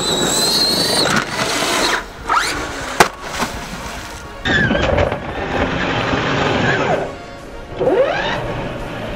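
Background music over a radio-controlled truck's electric motor, which whines up and down in pitch several times as it is throttled. There is a sharp impact about three seconds in.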